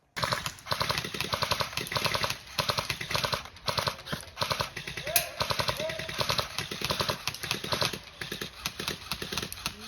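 Airsoft guns firing in rapid bursts: a fast run of sharp snapping clicks, several a second.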